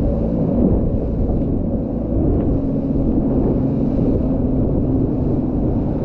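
Motorboat under way: its engine running as a steady low rumble with a faint hum, mixed with wind buffeting the microphone and rushing water.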